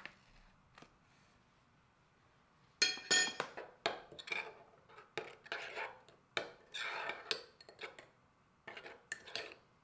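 Metal spoon clinking and scraping against a small ceramic bowl while stirring a thick seasoning sauce. It starts about three seconds in and goes on as a quick, uneven run of strokes that stops just before the end.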